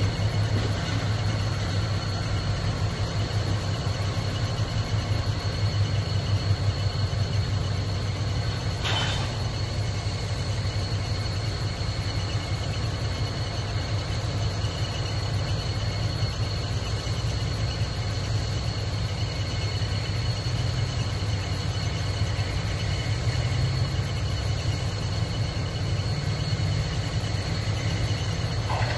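EMD SW1500 switcher locomotive's 12-cylinder diesel running steadily with a low rumble as it pulls a cut of tank cars at low speed, with one brief sharp noise about nine seconds in.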